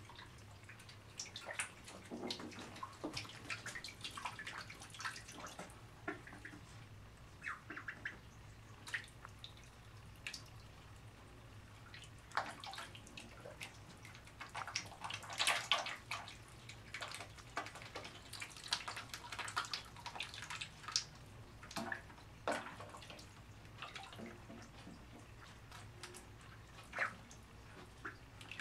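Ducklings swimming and dabbling in a bathtub of water: scattered small splashes and drips, with a louder run of splashing about halfway through, over a faint steady low hum.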